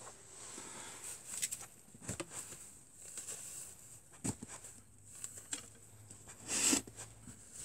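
Wooden arrows being pulled by hand out of a foam target: short squeaky scrapes and clicks, with one louder, longer scrape near the end.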